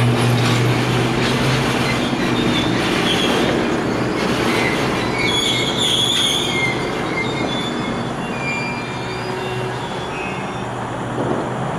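Freight train of autorack cars rolling by with a steady rumble of wheels on rail, the steel wheels squealing in thin, high, shifting tones, strongest around the middle.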